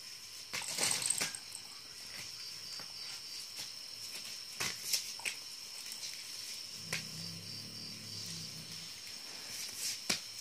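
A German shepherd puppy scuffling and rustling on a plastic floor sheet while playing with a ball toy, with a few short scrapes and crinkles, the loudest about a second in and around five seconds in. A faint steady high whine sits behind it.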